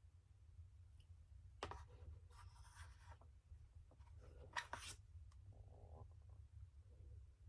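Faint scraping and rubbing from objects being handled, with two sharp clicks, about two seconds and about four and a half seconds in, over a low steady hum.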